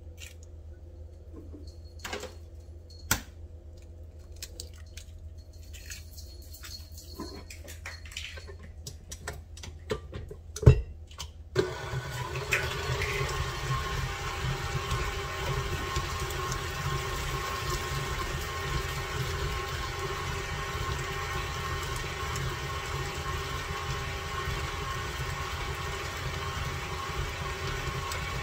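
Eggs cracked into a steel mixing bowl, with scattered sharp clicks and taps and one loud knock about ten seconds in. Then, a little before halfway, an electric stand mixer starts and runs steadily, beating cream cheese, cheddar and eggs into a batter.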